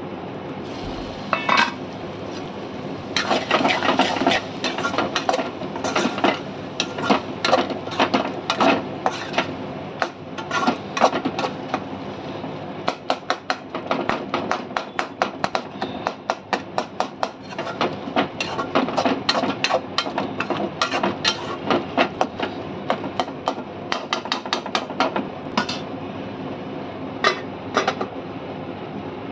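Metal ladle clanking and scraping against an aluminium kadai as a tomato curry is stirred: many quick irregular strokes, busiest in the middle, over a steady low hum. A single ringing metal clink comes about a second and a half in.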